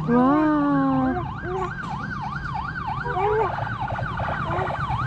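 Vehicle siren in a fast yelp, its pitch sweeping up and down about four times a second, with a lower held siren tone over the first second and an engine rumbling underneath.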